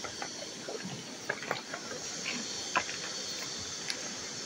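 Steady rush of river water, with scattered light clicks of wet river pebbles knocking together as they are shifted by hand.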